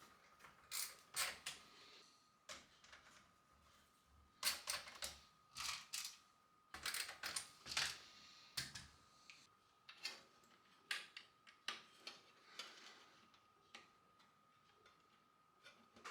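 Irregular small clicks and short rattles of computer parts being handled and fitted during a PC build, some in quick clusters, over a faint steady high tone.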